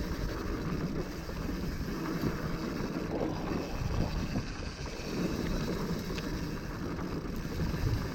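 Downhill mountain bike rolling along a dry dirt trail: steady tyre noise and wind rushing over the helmet-mounted microphone, with a few small knocks from bumps.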